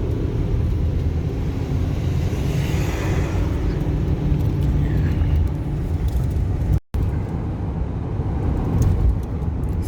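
Steady engine and road rumble inside the cabin of a moving 2014 Ford Econoline E-250 van. The sound cuts out completely for a moment about seven seconds in.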